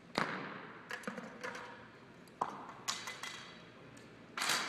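Bows being shot and arrows hitting targets: about half a dozen sharp snaps at uneven intervals, each ringing briefly in the echo of a gymnasium.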